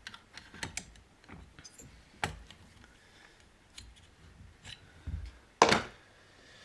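Scattered clicks and taps of hard plastic chainsaw parts being handled and pushed together by hand, with a dull thud a little after five seconds and a louder knock just after it.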